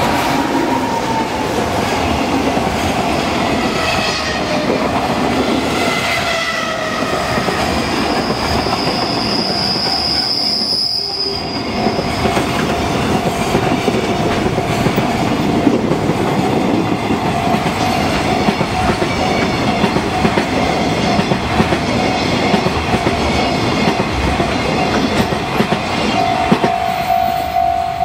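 Long JR Freight container train passing at speed: a steady rumble with the clickety-clack of wagon wheels on the rail joints, and a brief high wheel squeal about ten seconds in. A steady ringing tone from the level crossing's warning alarm sounds alongside throughout, and the train noise falls away right at the end as the last wagon passes.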